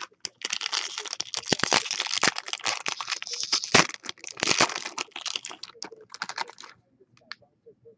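Foil wrapper of a Bowman Chrome baseball card pack being crinkled and torn open, a dense crackling with sharp snaps, starting about half a second in and stopping near the end.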